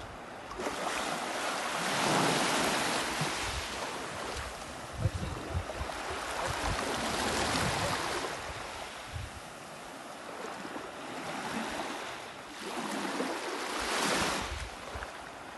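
Small sea waves washing onto the shore, swelling and fading about three times, with wind rumbling on the microphone.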